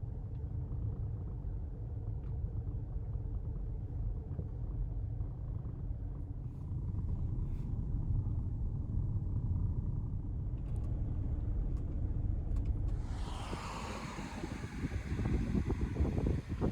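Steady low road and engine rumble inside a moving car. About thirteen seconds in, a louder rush of wind noise comes in.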